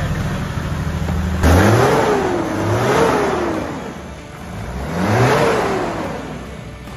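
Toyota 1HD-FTE 4.2-litre six-cylinder turbo-diesel, newly swapped into a Land Cruiser and on its first runs, idling steadily and then revved in about three short blips, its pitch rising and falling each time.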